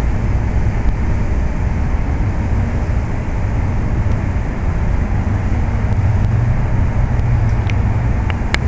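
Steady low rumble of outdoor background noise, with a few short clicks near the end.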